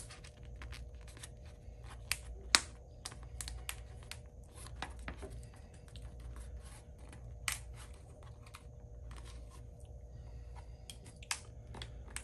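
Irregular small clicks and taps as a flexible edge guard strip is pressed onto the rim of a pickleball paddle and the paddle is handled, with a few sharper clicks standing out, over a low steady hum.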